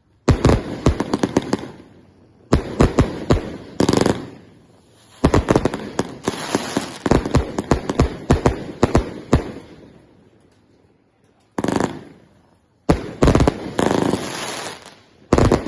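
Bursts of rapid-fire sharp bangs, in about six volleys each lasting one to two seconds, separated by short pauses. Each volley trails off in an echoing tail.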